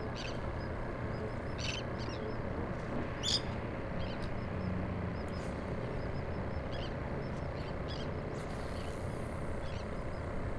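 Steady outdoor background noise of wind and water on an open pier, with short high chirps or ticks coming irregularly every second or so.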